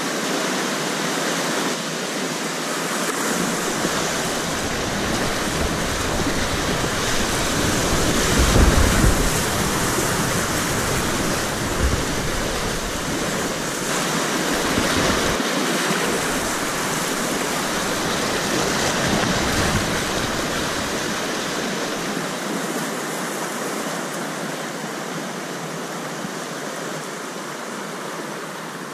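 River rapids rushing past a kayak, a steady loud rush of whitewater. It swells with a low rumble about eight to nine seconds in, then eases off toward the end as the water calms.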